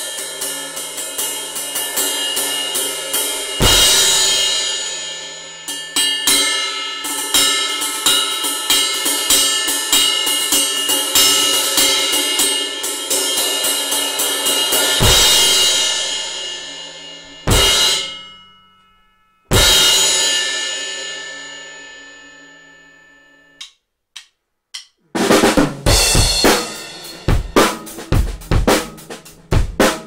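Meinl BCS brass cymbals played in a sound test: a fast run of strokes with loud crash accents, then a single crash hit about 20 seconds in that rings and slowly dies away. After a short pause, about 25 seconds in, the full drum kit comes in with kick, snare and cymbals.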